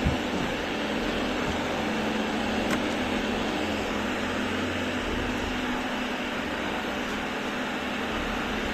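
Robot vacuum cleaner running steadily: a continuous whir from its motor and suction fan over a constant low hum, with a small knock right at the start.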